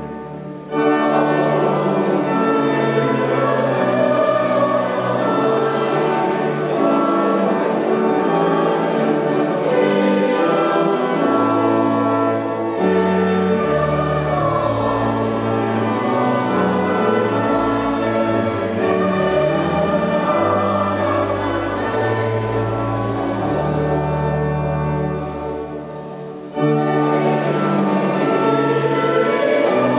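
Church music for the recession, with a pipe organ holding chords over a deep stepping bass line and a choir singing, heard in a large reverberant church. The phrases break off briefly about half a second in and again near 26 seconds before the music resumes.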